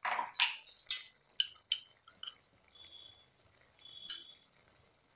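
A few light clinks of a spoon on metal with short clicks and pops from the simmering curry, as spice powder and a spoonful of ghee go into the kadai. The clicks are densest in the first two seconds; the clinks come singly after that.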